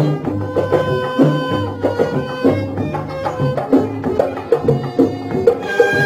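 Instrumental break of an Iraqi song: a Middle Eastern ensemble plays a melody over a steady hand-drum rhythm, with no singing. Higher melody lines come in near the end.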